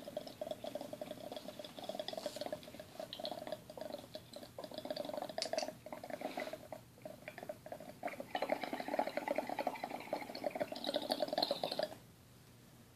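Water bubbling fast and steadily in a small glass dab rig as a long hit is inhaled through it from a quartz e-nail. It gets louder about eight seconds in and stops about a second before the end.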